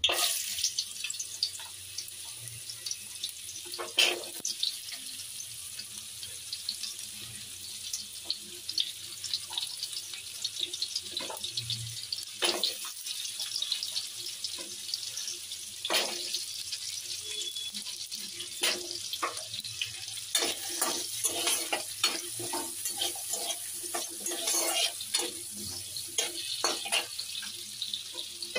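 Diced carrots sizzling in hot ghee in a non-stick frying pan, with a metal spatula scraping and tapping against the pan as they are stirred. The clicks come more often in the second half.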